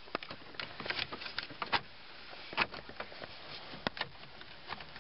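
Plastic trim cover being fitted around a car's steering column: irregular clicks, taps and light knocks of plastic against plastic.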